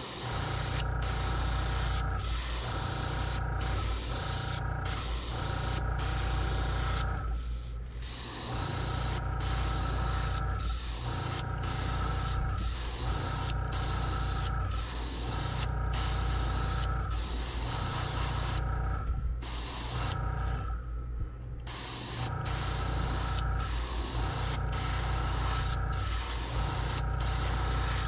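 Gravity-feed airbrush spraying gold paint at low air pressure, about 12 psi. Its steady hiss is broken by short pauses about once a second as the trigger is worked, with two longer pauses about 8 and 21 seconds in, over a steady low hum.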